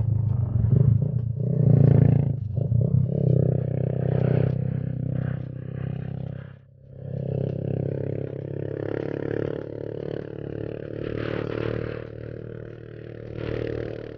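Motorcycle engine running under way on a ride. The engine note drops away briefly about six and a half seconds in, then picks up again.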